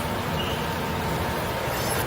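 Steady machinery noise in a metalworking factory: an even hiss and rumble with a faint constant hum.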